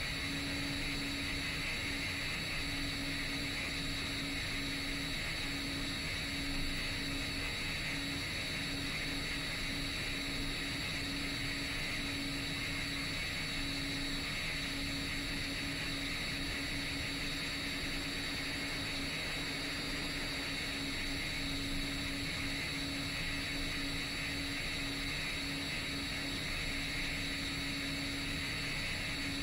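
Motors and propellers of a 10-inch FPV quadcopter in steady cruise flight: an even drone at a constant pitch with a steady high whine over a hiss.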